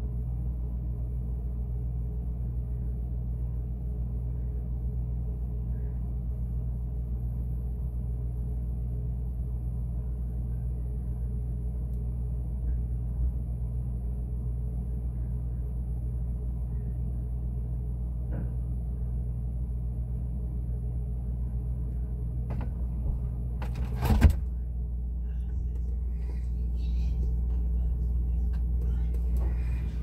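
Refrigerator running with a steady low hum, heard from inside the closed fridge. A sharp knock comes about four-fifths of the way through, and louder handling noise follows near the end.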